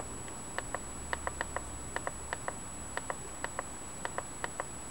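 Keys of a Cdragon H20 mini wireless keyboard clicking as they are pressed over and over to step through a menu: about eighteen short, sharp clicks, irregularly spaced and many in quick pairs.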